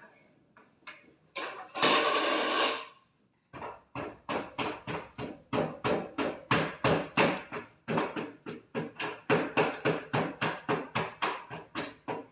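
Sharp knocks on a hard surface repeated in a steady run, about three a second, starting about three and a half seconds in like chopping or pounding. A brief loud rushing noise about two seconds in comes before them.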